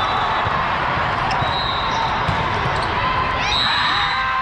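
Volleyball gym ambience: a steady hubbub of crowd and players with repeated thuds of balls being hit and bouncing, and a few sliding squeaks about three seconds in.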